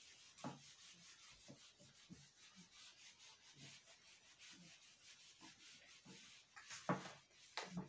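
Whiteboard eraser sponge rubbing marker off a whiteboard in repeated strokes, a faint scratchy wiping, with two louder knocks near the end.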